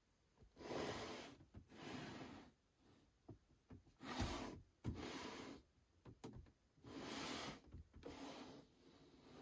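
Plastic display packaging of a toy figure set rubbing and scraping on a tabletop as it is turned by hand, in about six short bursts of rustling with a few light clicks and taps between them.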